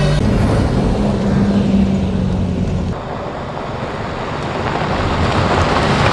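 Holden RG Colorado ute's engine droning steadily inside the cab on a dirt track. About three seconds in the sound cuts to outside, where the ute approaches on loose gravel and drives close past, its engine and tyre noise building to the loudest point near the end.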